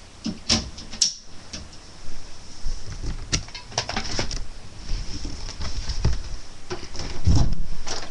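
Handling noise close to the microphone: rustling of a hooded sweatshirt and hands moving against it, with scattered clicks and bumps and a heavier low thump about seven seconds in.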